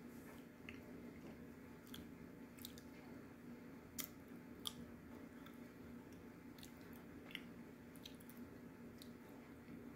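A person chewing edible slate, faint crunches and sharp mouth clicks coming every second or so, over a low steady hum.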